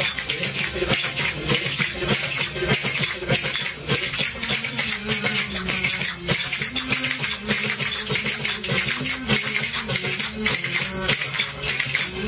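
Dance music with a tambourine-like jingle keeping a steady beat. A wavering melody line comes in about four seconds in.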